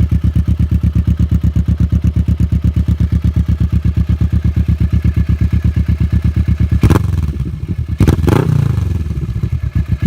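Kawasaki Vulcan S 649 cc parallel-twin engine idling with a steady, rapid exhaust pulse, then revved twice in quick succession about seven and eight seconds in, the revs falling back to idle.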